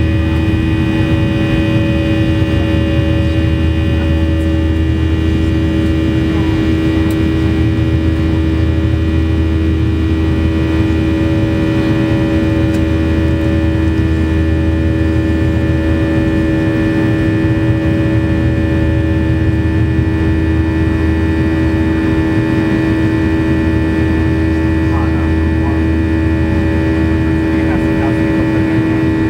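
The IAE V2500 turbofan of a McDonnell Douglas MD-90, heard from the cabin just beside the engine while the airliner climbs after takeoff. It gives a loud, steady drone: a low rumble with several held tones above it, unchanging throughout.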